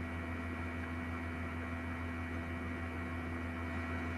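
Steady electrical hum with a light hiss, with a few fainter steady higher tones over it.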